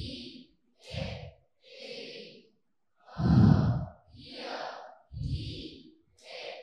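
A class of students saying English vowel sounds aloud in unison, one short vowel at a time with brief pauses, heard distantly and breathy through a handheld microphone.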